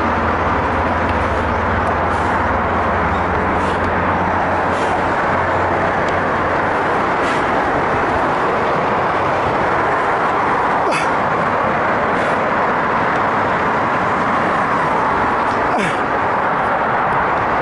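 Steady rushing wind noise on a head-mounted action camera's microphone, with a few light clicks scattered through it.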